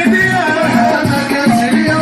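Music with a singing voice over a steady percussion beat with shakers.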